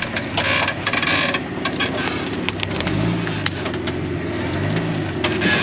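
An off-roading Jeep's engine runs at low speed while it crawls over rocks, its revs rising and falling twice, over a steady rushing noise with a few sharp clicks.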